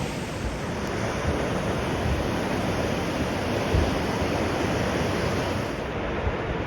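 Steady roar of rushing water, with some wind buffeting the microphone.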